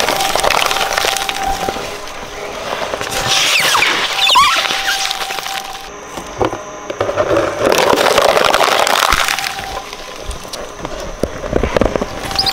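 Plastic toys being crunched and cracked apart in a shredder: dense snapping and crunching that swells in waves as pieces break up.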